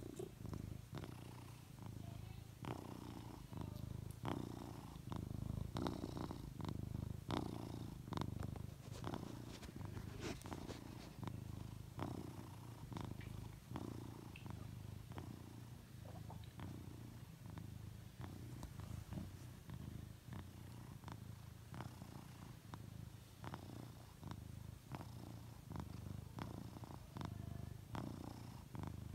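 Tabby cat purring steadily close up, the purr swelling and fading with each breath every couple of seconds, with scattered faint clicks.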